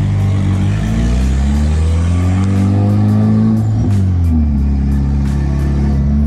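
Mitsubishi Eclipse GSX's turbocharged 4G63 four-cylinder engine heard from inside the cabin, rising in pitch as it accelerates. About four seconds in the pitch drops sharply, then the engine climbs again.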